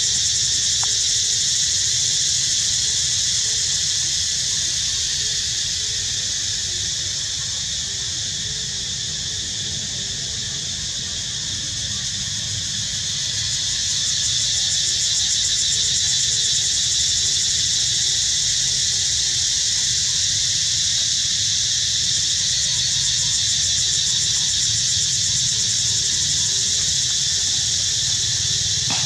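A steady, high-pitched insect chorus that eases slightly in the middle and then swells back, over a constant low rumble.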